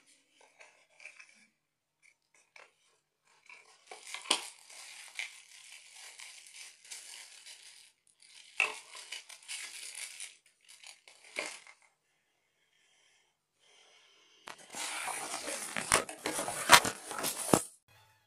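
Clear plastic wrapping and paper packaging crinkling and rustling in irregular bursts as a box is unpacked by hand, with a few sharp crackles. The loudest, longest stretch of crinkling comes near the end.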